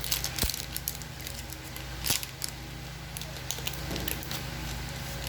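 Trading cards being handled and flipped through by hand, giving short scattered rustles and taps, the sharpest near the start and about two seconds in, over a steady low hum.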